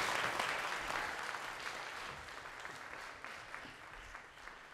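Applause from the audience and panel, a dense patter of clapping that fades away steadily over a few seconds.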